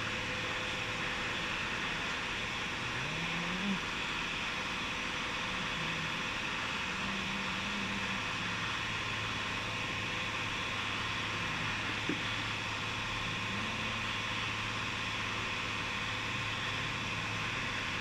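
A steady low hum under a constant hiss, with a single faint click about twelve seconds in.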